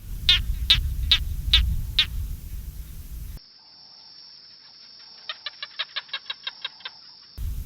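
Animal calls: five short, sharp high-pitched calls about half a second apart over a low rumble, then, after a cut, a quick run of about a dozen short chirps over a steady high hum.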